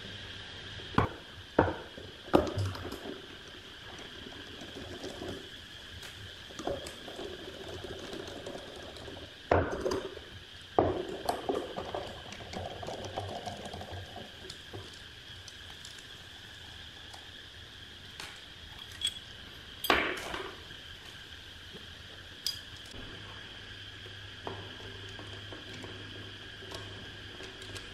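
Scattered clicks, clinks and knocks of small metal microphone parts and a screwdriver being handled and set down on a wooden workbench as an old microphone is taken apart, in clusters near the start, about ten seconds in and once more about twenty seconds in. A steady faint high whine and low hum run underneath.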